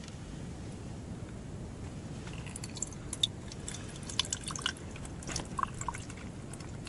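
Tea pouring from a vacuum flask into a small metal cup, a thin trickle with small drips and splashes starting about two seconds in, over a low steady background noise.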